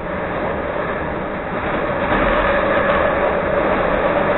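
CTA Red Line rapid-transit train running at speed, heard from inside the car: steady running and wheel-on-rail noise with a steady hum, growing louder about two seconds in.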